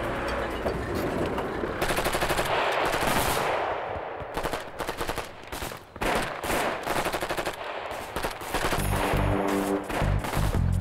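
Automatic gunfire in rapid bursts, densest about two to three seconds in, then scattered shots. Music with a low beat comes in near the end.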